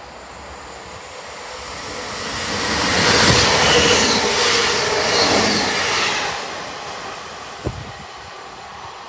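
A Class 158 diesel multiple unit passing close by at speed: a rush of wheel and engine noise that swells over the first few seconds, holds loud for about three seconds, then fades. A single short, sharp knock comes near the end.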